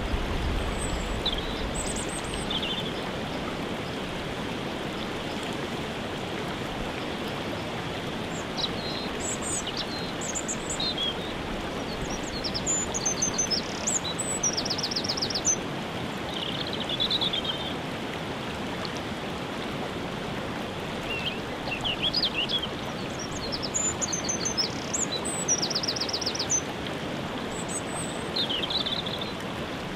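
Steady rushing of a waterfall, with small birds singing short phrases over it every few seconds, including a couple of quick trills.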